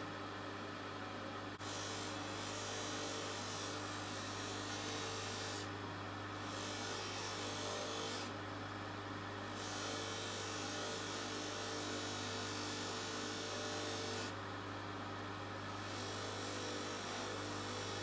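Bench polishing motor running with a steady hum while a small metal watch-bracelet part is pressed against its spinning cloth buffing wheel, giving a hissing rub. The hiss breaks off for a second or so four times as the piece is lifted away and turned.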